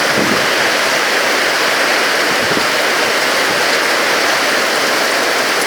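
Heavy rainstorm: torrential rain and storm wind, a steady loud rushing.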